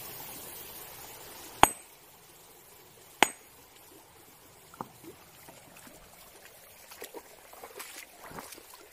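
Sledgehammer striking a river rock twice, about a second and a half apart, each blow a sharp clink with a brief high ring. The hammer blows are meant to stun fish sheltering under the stone. Faint small knocks and water follow as the rock is handled.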